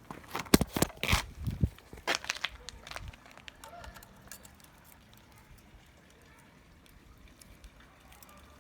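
A quick cluster of sharp clicks and knocks over the first three seconds, then only faint handling noise: tools and metal parts being handled while a 50cc mini moto engine is screwed together.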